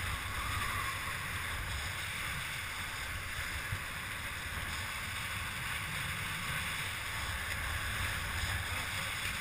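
Steady rush of wind buffeting the microphone, with water hissing and spraying along the hull of a Hobie catamaran sailing fast.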